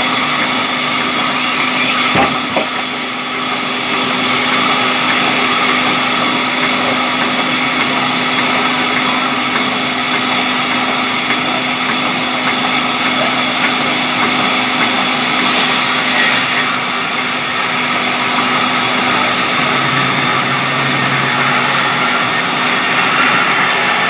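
Large belt-driven band saw running steadily as it cuts through a thick mahogany slab, its motor and blade giving a loud, even hum and whine, with one sharp knock about two seconds in.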